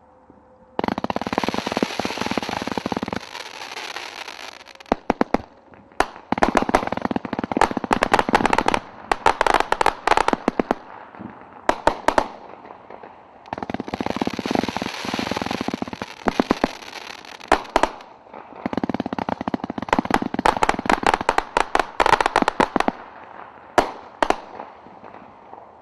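Dominator 192 Proof 500-gram firework cake firing. It goes off in several waves: stretches of steady hiss from rapid shots give way to dense crackling and many sharp cracks from the bursting stars.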